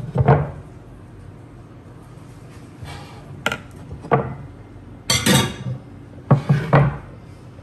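A rubber spatula knocking and scraping against glass dishes: scattered clinks and knocks, with a longer scrape about five seconds in.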